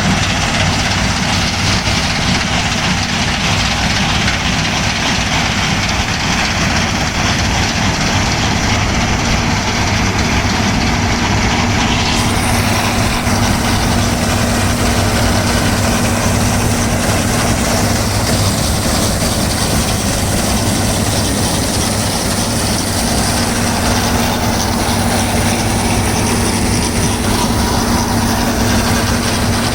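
New Holland TC5.30 combine harvester running at work, with a loud, steady engine-and-machinery drone. About twelve seconds in, the sound suddenly turns brighter and hissier.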